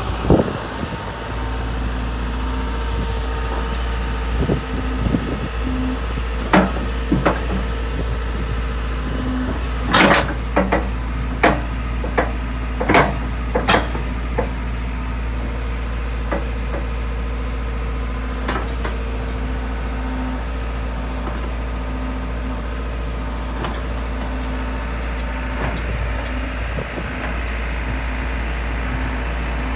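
Tracked excavator's diesel engine idling steadily, with a scattering of sharp clicks and knocks, most of them within a few seconds of each other around the first third of the stretch.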